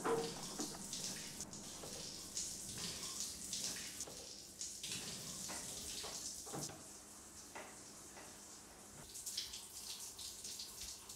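Faint trickling and dripping water from a bathroom tap or shower, with irregular small splashes.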